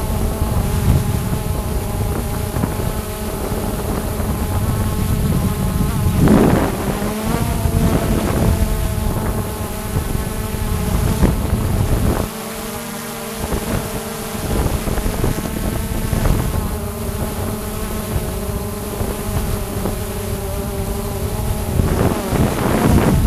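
Quadcopter drone's propellers and motors whining steadily in flight, a buzzing hum with several held pitches that waver slightly, with wind rumbling on the microphone that lets up briefly about halfway through.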